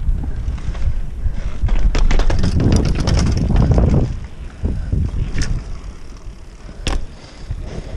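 Wind buffeting the microphone while a downhill mountain bike rolls over paving and road, with a flurry of sharp rattling clicks from the bike about two seconds in. The rumble drops off about halfway through, leaving lighter wind noise and a couple of single clicks.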